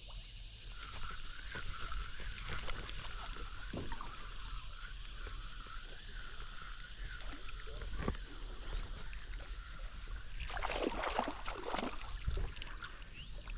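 River water running past a kayak, with scattered light knocks from the boat and gear. There is a louder stretch of splashing about ten seconds in.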